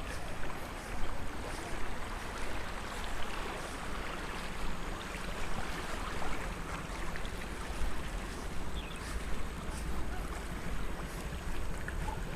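Floodwater rushing steadily past a small bridge swollen by heavy rain, with wind rumbling on the microphone.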